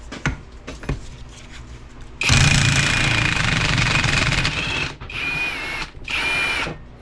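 Impact wrench hammering on the transfer case's front output yoke nut: one long burst with a steady high whine, then two short bursts.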